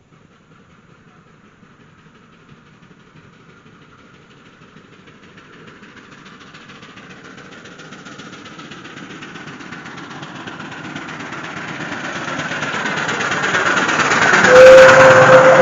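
Miniature-railway steam locomotive hauling a train of coaches, approaching and passing close by. Its rhythmic running and the wheels on the rails grow steadily louder and are loudest as it passes. Near the end a single steady note is held for about a second and a half.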